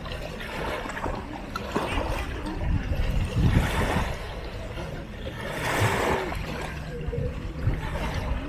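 Small sea waves lapping and washing at the water's edge, with two louder washes, one around the middle and another a couple of seconds later. Faint voices of people in the water are heard behind it.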